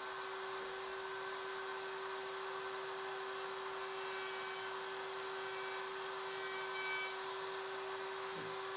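Table-mounted router spinning a dovetail bit at speed with a steady high whine and hiss. The sound rises slightly as the end of a board is fed across the bit to rout a shallow back bevel on the dovetail tails.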